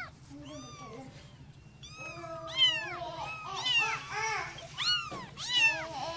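Several kittens mewing, short high-pitched mews that overlap and repeat a few times a second, starting about two seconds in.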